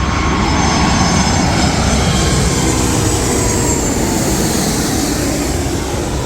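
Airliner passing close by, its engines giving a loud rumble with tones that slowly fall in pitch as it goes past.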